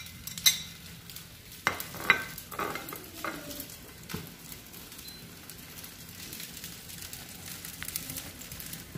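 Chopped green onion and tomato sizzling steadily in a little ghee in a frying pan, with a few sharp clinks and knocks in the first four seconds.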